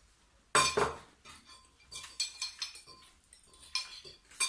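Fork and plate clinking and scraping while eating noodles: one louder ringing clink about half a second in, then a series of lighter clinks.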